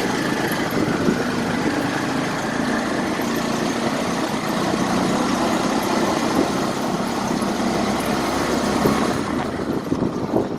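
An engine running steadily at idle, with a dense noise over it, dropping away near the end.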